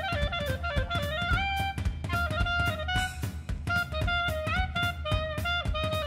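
Background music: a melody with stepping and sliding notes over a steady drum beat.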